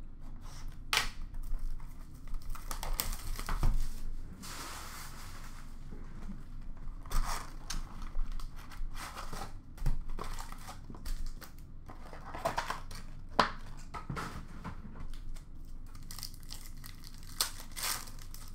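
Plastic shrink-wrap torn off a sealed box of hockey trading cards, the cardboard box opened and its foil card packs handled: scattered tearing, crinkling and rustling, with one longer tear about four and a half seconds in.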